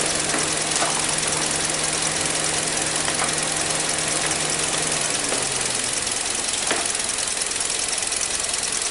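2019 Kia Rio's engine idling steadily under the open hood, with a fast, light ticking over it. A low steady hum underneath fades out about five and a half seconds in.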